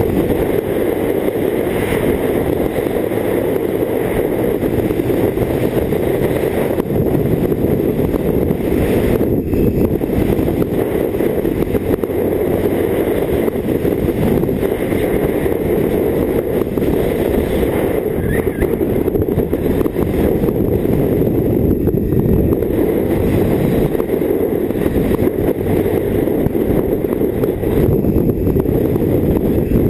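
Riding noise from a BMW K1600GT touring motorcycle at steady road speed: a constant, dense wind rush on the mounted camera's microphone with the inline-six engine running underneath.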